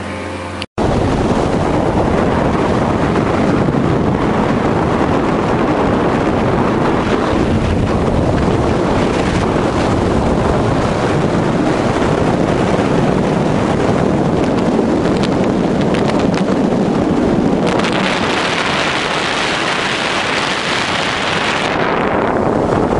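Motorboat running under way with heavy wind noise on the microphone: a loud, even rush of noise with no clear engine note. A brief dropout comes just under a second in, and about 18 s in the hiss turns brighter.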